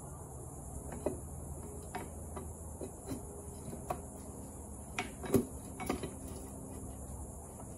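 Scattered light metal clinks and knocks as a TR6060 six-speed transmission's counter gear is worked into its bearing race while the mainshaft is pried up with a pry bar; the loudest knock comes a little past halfway.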